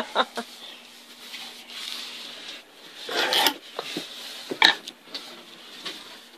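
Cardboard box and packaging being handled: a few brief rubbing, scraping sounds and a sharp tap about four and a half seconds in.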